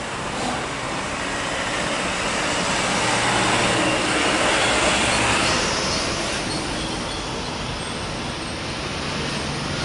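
Twin-engine jet airliner climbing out after takeoff: a broad jet-engine roar that swells to its loudest around the middle, then fades as the aircraft pulls away.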